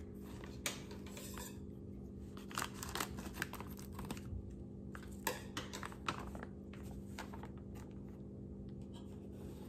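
Thin plastic bag of molding powder crinkling and rustling as it is handled, with scissors snipping it open partway through, all over a steady low background hum.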